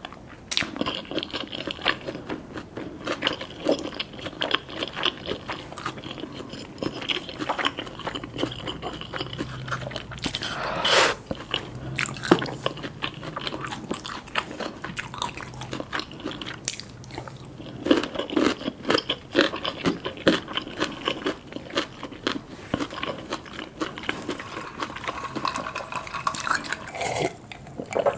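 Close-miked eating sounds: crunchy Korean fried chicken bitten and chewed, with many sharp, irregular crunches.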